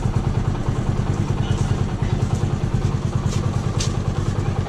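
A small engine running steadily, with a fast, even low throb. A couple of short sharp clicks come about three and four seconds in.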